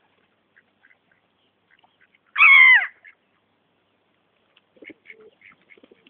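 A waterbird gives one loud call lasting about half a second, a little over two seconds in, dropping in pitch at its end. Faint short chirps of other birds come and go around it.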